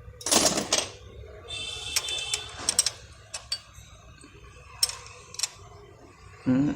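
Hand tools clicking and scraping on the metal of a motorcycle's valve tappet adjuster as its lock nut is worked tight, in a string of uneven clicks. A louder scrape comes near the start, a light metallic ringing about two seconds in, and a dull knock near the end.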